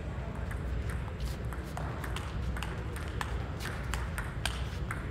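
Table tennis rally: the celluloid-type ball clicking sharply off paddles and table in quick, irregular succession.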